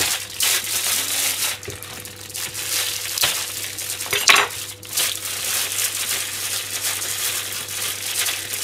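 Thin plastic produce bag crinkling and rustling as it is handled and opened around a bundle of green beans, with a couple of louder crackles about three and four seconds in.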